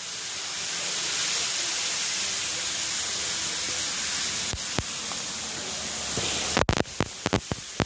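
A steady, airy hiss that cuts off abruptly about six and a half seconds in, followed by a few sharp clicks.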